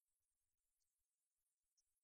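Near silence: a muted soundtrack with only a faint hiss.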